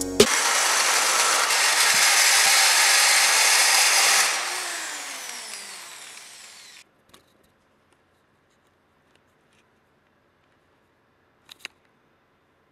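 Electric drill with a carbide-tipped (TCT) hole saw cutting through the stainless-steel end cap of a KTM Duke's stock silencer for about four seconds. The drill then winds down with a falling whine and stops around seven seconds in. A couple of faint clicks come near the end.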